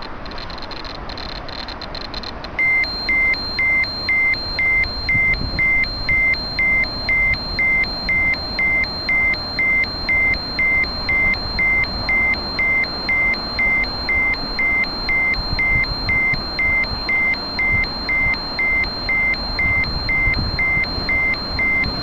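Ecotest MKS-05 dosimeter beeping its alarm, a high beep repeating about twice a second that starts a few seconds in. This is the dose-rate alarm set off by raised radiation over contaminated drain-outlet mud.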